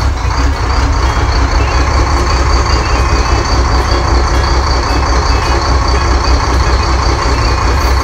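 Boat's engine running steadily: a loud low drone with a thin steady whine above it.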